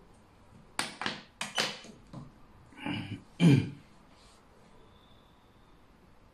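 A man coughing: two pairs of harsh coughs, then a deeper throat-clearing cough or two, the last one the loudest.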